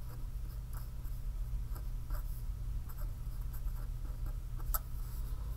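Marker pen writing on paper: a string of short, light scratchy strokes as words are written out, over a steady low hum.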